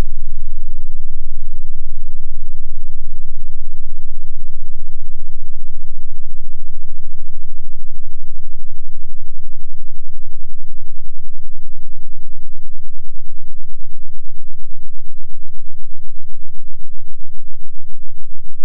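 Deep bass test sine wave, loud, sliding slowly down in pitch through the lowest bass toward the limit of hearing. Its individual swings come through as a pulsing that grows slower toward the end.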